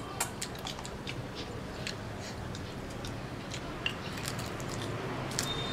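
Eating at the table: scattered light clicks and ticks of chopsticks against bowls, with the crunching and chewing of crisp-fried salt-and-pepper shrimp.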